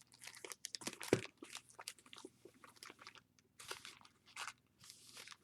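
Trading-card pack wrappers crinkling and crackling quietly in short irregular crackles as the packs are torn open and the cards handled.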